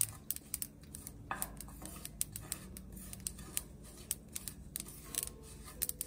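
Sesame seeds popping as they toast in a pan with a little oil: a continuous scatter of small, irregular ticks and crackles, several a second.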